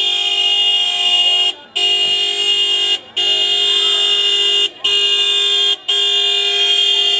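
Car horn honking in five long held blasts, each a second or more, with short breaks between: celebratory honking as a decorated wedding car arrives.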